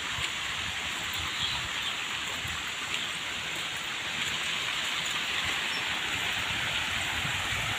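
Steady hiss of splashing water from ornamental garden fountains, a little louder from about halfway through, with light wind rumble on the microphone.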